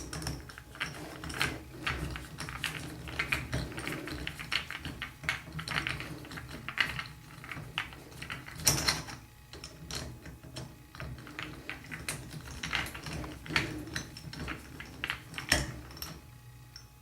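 Repeated small clicks and ticks of a screwdriver working out the screw that holds a single-handle shower faucet's handle, with a few louder knocks of tool and metal parts being handled; the clicking dies away near the end.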